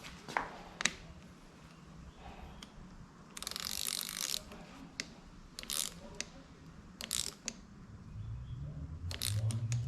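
Ratcheting torque wrench clicking in several short bursts, with scattered tool clicks between them.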